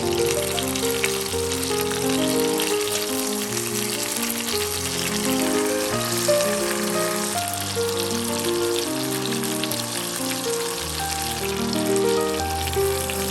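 Food sizzling and crackling as it fries in a pan, with background music carrying a melody throughout.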